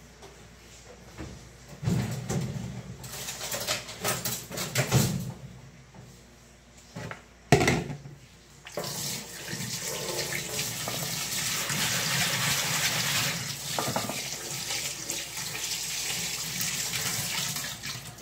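Kitchen tap running steadily into the sink from about halfway through, after some irregular clatter of handling and one sharp knock.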